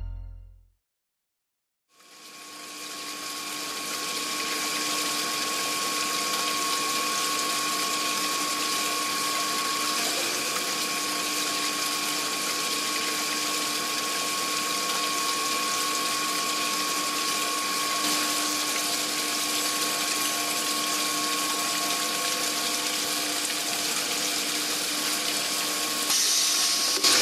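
Flextech two-spindle glass corner grinding machine running with a steady hiss and faint steady humming tones. It fades in about two seconds in and turns louder and brighter near the end.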